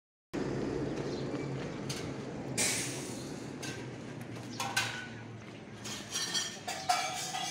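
Steady low rumbling background noise that slowly eases off, with a few short sharp clinks and knocks, the loudest near the end.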